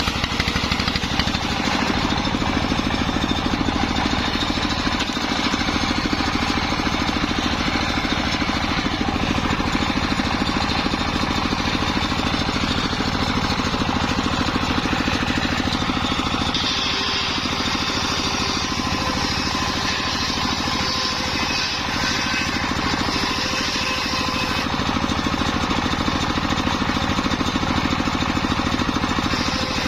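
Circular sawmill rig running steadily with an engine-like drone. A higher whine joins in a little past halfway and lasts several seconds.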